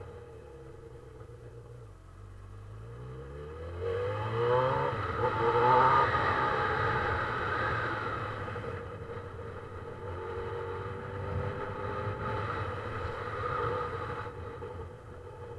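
Honda CB1000R's inline-four engine accelerating, its note rising for a few seconds and loudest about five seconds in, then running at a steadier speed on part throttle.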